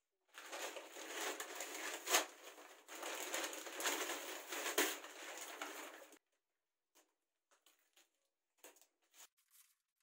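Backing paper being peeled slowly off a self-adhesive vinyl wall sticker sheet as it is pressed onto the wall, a crinkling, crackling rustle with a couple of sharp snaps. It lasts about six seconds, then only a few faint taps follow.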